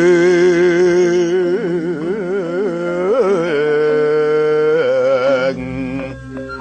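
Javanese gamelan music: a loud, long melody line with a wavering, ornamented pitch rides over the ensemble, then stops about five and a half seconds in, leaving the softer gamelan notes.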